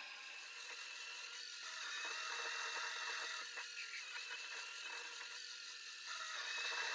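Small metal lathe facing the end of an aluminium round bar: a steady motor and spindle whine, with the hiss of the cut swelling twice as the tool feeds across the face.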